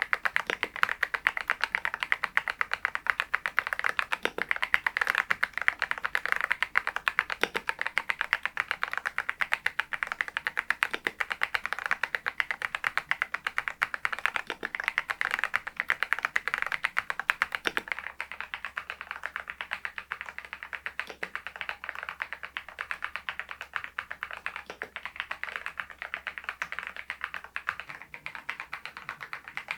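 RK R99 mechanical keyboard with its stock cream switches being typed on continuously, a dense run of keystroke clicks that grows a little softer about halfway through.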